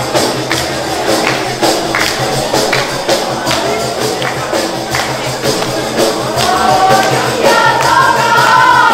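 Albanian wedding dance music played on def frame drums with jingles, with a steady beat. Voices singing the melody come in over the drums in the last couple of seconds.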